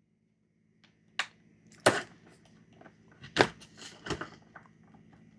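Several sharp clicks and knocks, a few single ones and a cluster about three to four seconds in, from a plastic DeWalt bit-set case being handled.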